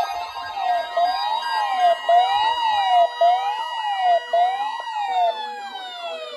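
Several electronic sirens sounding together: a rising-and-falling wail about once a second, layered with higher sweeps. Near the end the sirens wind down in one long falling glide.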